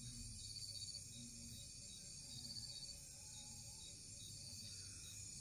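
Faint night chorus of crickets and other insects: a steady high trilling with evenly repeating chirps.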